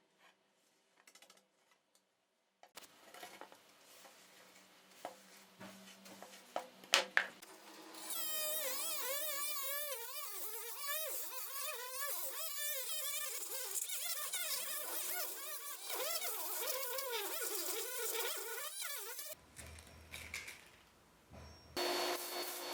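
A small power tool whines at high pitch, its pitch wavering up and down as load on it changes. It is preceded by a few clicks and knocks and followed near the end by a change to scraping noise.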